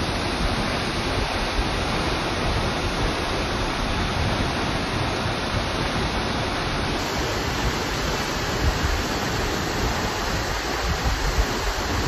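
Steinsdalsfossen waterfall pouring onto rocks close by: a steady, even rush of falling water with a low rumble underneath.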